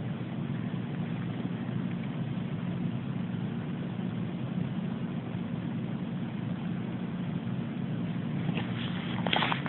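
A steady low drone of unknown source, even in level and pitch, with hiss above it. Near the end come a few crackling clicks, like steps or rustling close to the microphone.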